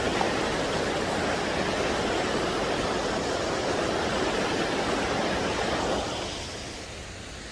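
Flowing stream water, a steady rush; about six seconds in it drops to a much quieter hush.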